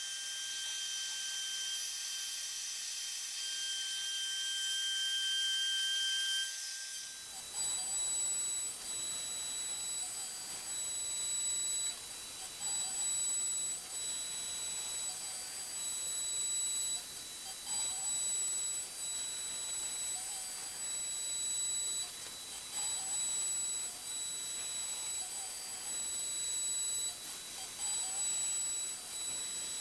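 CNC router spindle running with a steady high-pitched whine while cutting acrylic. About seven seconds in the whine jumps to a higher pitch and a fuller cutting hiss joins it, with a faint pulse repeating every two to three seconds.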